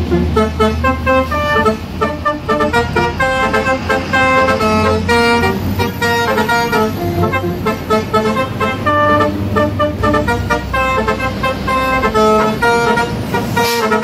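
Edited truck air horn playing a fast tune of short pitched notes that change several times a second, over the low rumble of passing diesel trucks. A brief whooshing sweep comes near the end.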